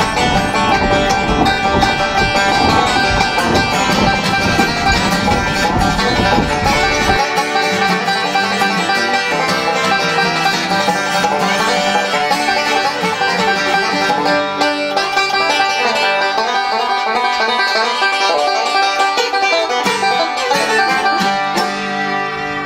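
Bluegrass-style instrumental music led by a plucked banjo, starting to fade out near the end. Under the first several seconds a low rumble cuts off abruptly.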